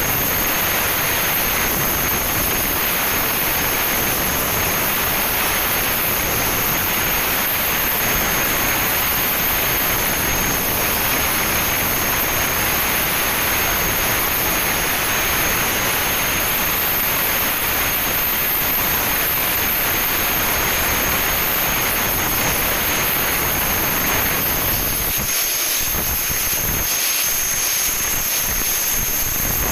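Steady, loud hiss and roar of hose-fed compressed-air spraying equipment working on steel girders, with a constant high whine above it.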